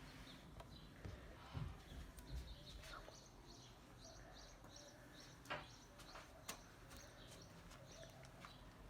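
Faint birds chirping in short repeated notes over a low background hum, with a few soft clicks and knocks.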